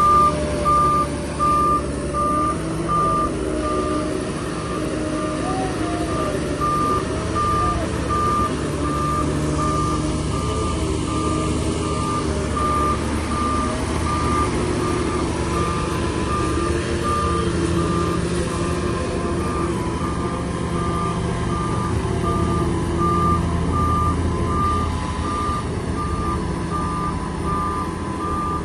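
Heavy equipment's reversing alarm beeping in a steady repeated pattern over diesel engines running. The beeping is fainter through the middle and strong again near the end.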